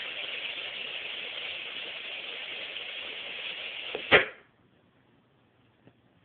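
Alinco DR-600T ham radio transceiver's speaker hissing with steady FM static. About four seconds in, a short burst and click cut it off as the squelch closes, then near silence.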